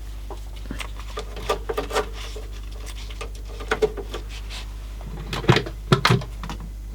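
Yamaha CDC-755 five-disc CD changer's mechanism working: irregular clicks and clunks with a faint whir, the loudest clunks about five and a half to six seconds in, over a steady low hum.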